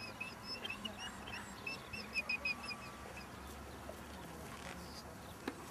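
A small bird calling: a run of short, high chirps over the first three seconds, coming faster about two seconds in. A single sharp click near the end.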